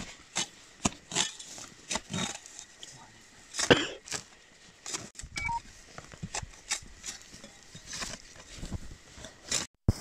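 Hand digging in stony soil: irregular scrapes and knocks of a small digging tool and hands working earth and rock, with one louder strike about four seconds in.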